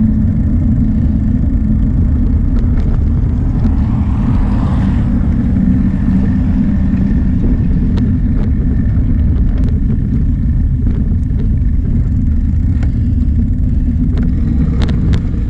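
Wind buffeting the microphone of a bike-mounted camera as the bicycle rolls over asphalt, a loud, steady low rumble with a few sharp clicks from bumps.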